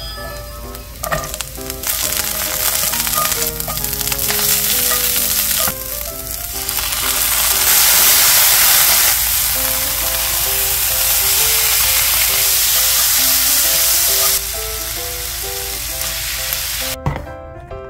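Garlic, cabbage and chives sizzling in hot oil in a frying pan while being stir-fried with chopsticks. The sizzle starts sharply about two seconds in and cuts off shortly before the end.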